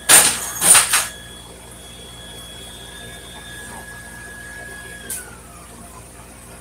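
Welding-shop equipment: two short, loud hisses, then a steady high whine. After a click about five seconds in, the whine slides down in pitch as it winds down.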